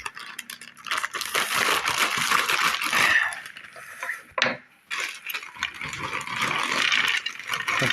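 Crinkly crackling of a plastic chips packet being opened and handled, in two spells with a short pause and a sharp click between them.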